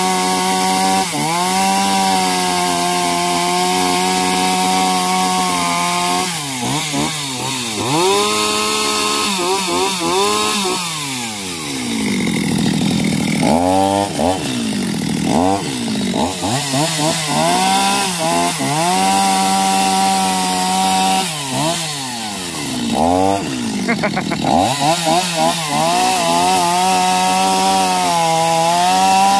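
Two-stroke Stihl chainsaw at full throttle, cutting through the trunk of a ketapang (tropical almond) tree. The engine note holds steady for the first few seconds, then repeatedly drops and climbs back as the chain bogs in the wood and recovers.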